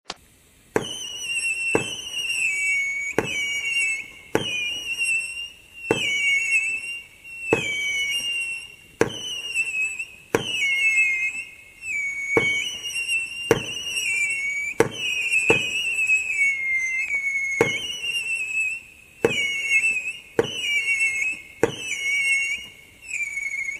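Winda 'Sexy Sisters' 16-shot consumer fireworks cake firing: about sixteen shots one to two seconds apart, each a sharp pop followed by a shrill whistle that wavers and drops slightly in pitch.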